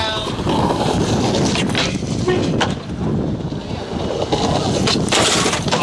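Skateboard wheels rolling on rough concrete with wind buffeting the camera microphone, and a few sharp clacks of the board, the loudest near the end.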